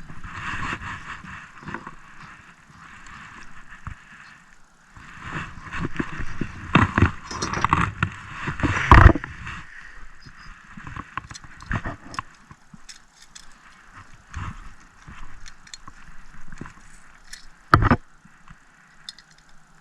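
Irregular knocks, clicks and scrapes of fishing tackle and the fish being handled in a small jon boat. The loudest thump comes about nine seconds in, and another sharp one near the end.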